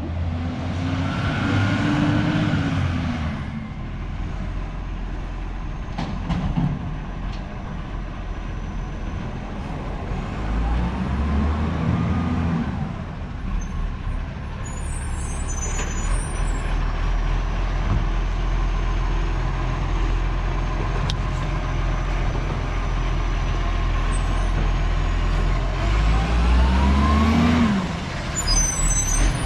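Garbage truck's diesel engine running, revving up three times with a rising pitch, with short hisses of air from its brakes around the middle and near the end.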